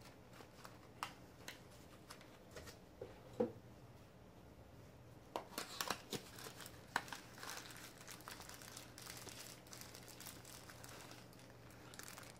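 Plastic wrapping crinkling and a small cardboard eyepiece box being handled, heard as scattered faint clicks and rustles that are busiest about halfway through.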